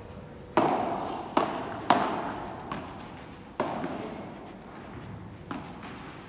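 Padel rally: sharp pops of the ball struck by solid padel rackets and bouncing on the court, each echoing in a large indoor hall. Three loud hits come within the first two seconds and another about three and a half seconds in, with fainter ones between and after.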